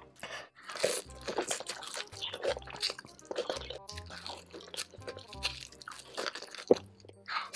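Repeated crisp crunches and chewing as a sauce-dipped fried chicken wing is bitten and eaten. Background music with a low bass runs underneath.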